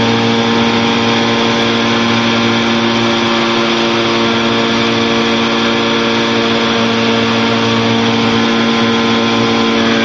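Challenger II light-sport aircraft's engine and propeller droning steadily in level flight, heard from inside the cockpit, with a strong even pitch.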